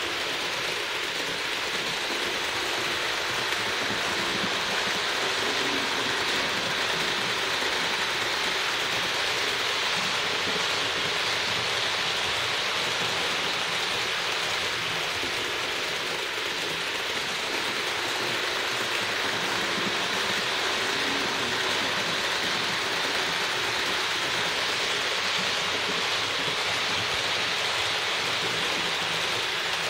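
Roco HO-scale ÖBB 1044 model locomotive running with its coaches on an analog layout: a steady hiss of the motor, gears and metal wheels rolling on the rails.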